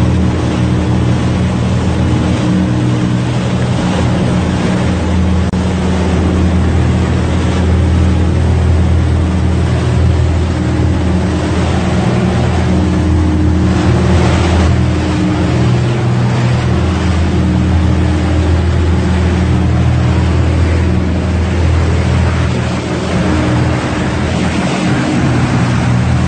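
Fishing boat's engine running steadily under way: a low, even drone with water rushing along the hull, and a brief louder rush of water about halfway through.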